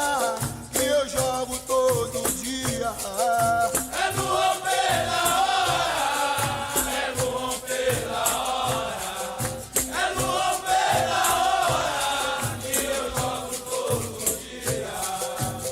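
Music with a shaker rattling and a low drum beat in a steady rhythm, under voices chanting in a group.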